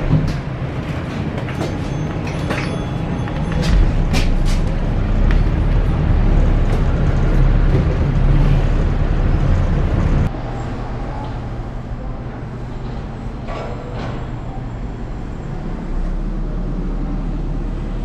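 Engine and road noise inside a moving city bus: a steady low rumble, with a few sharp clicks and rattles in the first few seconds. The sound drops and changes abruptly about ten seconds in.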